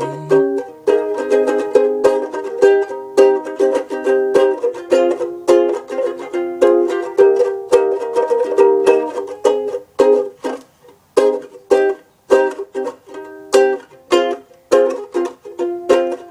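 Ukulele strummed in a steady rhythm of chords, an instrumental passage with a sung word fading out at the start.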